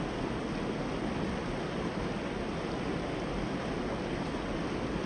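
Steady rushing of a small creek's running water.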